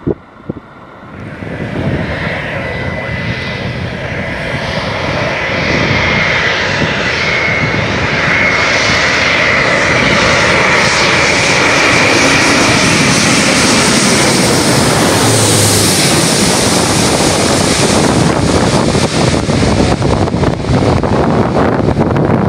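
Airbus A350 jet airliner's Rolls-Royce Trent XWB turbofans passing on landing: the engine noise swells over the first several seconds, with a thin high whine in the early part, then stays loud and steady.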